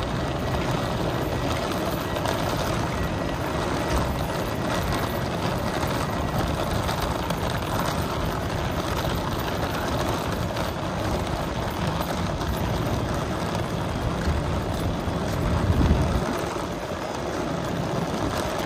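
Wheeled suitcases rolling over concrete pavement: a steady rumble, with a louder low rumble for a moment about sixteen seconds in.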